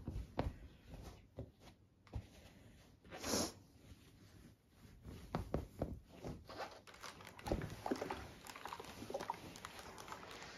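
Fabric rustling and soft handling clicks as a garment is unfolded and smoothed out on an ironing board, with one brief louder swish of cloth about three seconds in.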